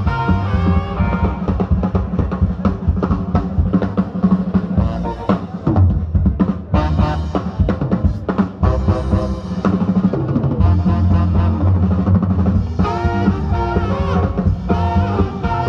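Live band playing loudly: a drum kit with busy snare and bass drum under upright bass and electric guitar, and a saxophone melody at the start and again near the end.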